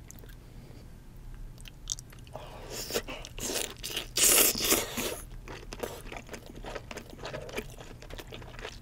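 Close-miked eating of cooked king crab leg meat: after a quiet start the meat is bitten and drawn into the mouth, loudest about four seconds in, then chewed with many small mouth clicks.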